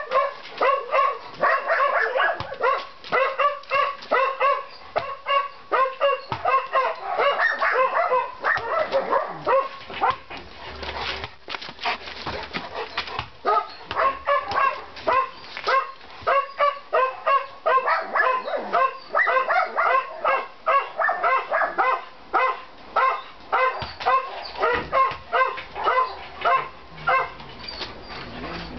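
Newfoundland dog barking over and over in quick succession, about two to three barks a second, with a brief lull about ten seconds in, while it begs for a ball.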